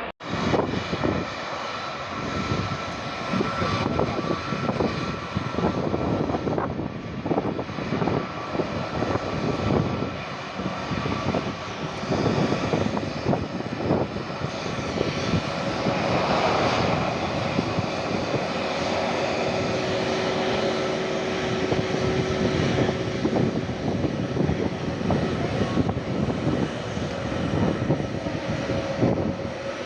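Jet engine noise of an Airbus A321neo with Pratt & Whitney geared turbofans, a dense, steady rush that swells and fluctuates throughout with a few faint steady tones in it.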